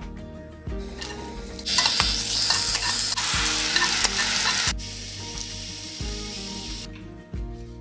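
Wood ear mushrooms sizzling in sesame oil as they are stir-fried in a nonstick frying pan. The sizzle is loudest from about two seconds in, drops lower near five seconds, and stops about a second before the end. Background music plays underneath.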